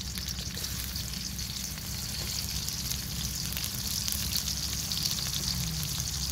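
Sliced onions sizzling in hot oil in a steel karahi over a wood fire: a steady crackling hiss full of tiny pops, with a low rumble underneath.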